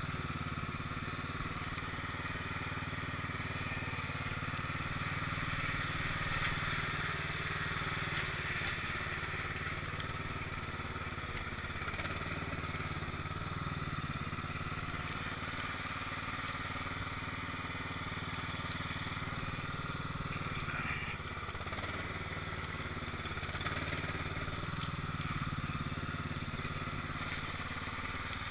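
Cub Cadet XT1 lawn tractor engine running steadily under load as the tractor pushes heavy snow with a front plow blade.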